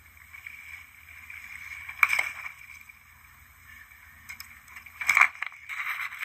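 Water sloshing and splashing around a kayak under a steady hiss, with two loud splashing hits about two seconds in and again about five seconds in, the second longer and ending abruptly.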